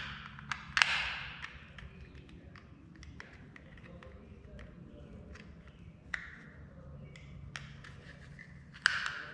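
Plastic clicks and snaps of a garage door remote's case being pried open, with a sharp crack about a second in and another near the end, and small ticks and scrapes between.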